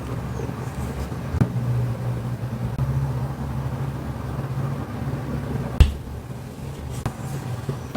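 A steady low hum with a few sharp clicks and knocks, the sharpest one near six seconds in.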